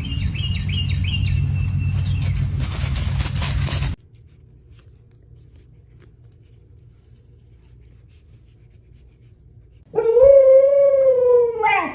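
A dog howls once near the end: one long call of almost two seconds that rises a little and then falls. Before it there are a few seconds of loud, muddled noise with a few faint high chirps, and then a quiet stretch.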